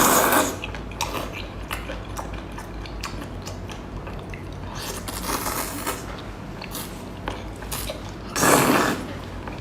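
A person biting and chewing a mouthful of octopus noodles close to the microphone, with small wet clicks throughout. A louder noisy burst comes about eight and a half seconds in.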